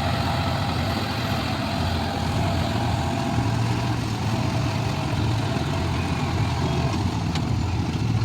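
A heavy engine running steadily at idle, a constant low hum.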